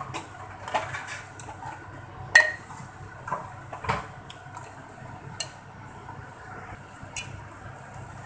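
Metal spoon scraping and clinking against a metal cooking pot while stirring mutton in thick masala, a few irregular clinks with the loudest about two and a half seconds in. The meat and spices are being stirred so they don't stick to the bottom.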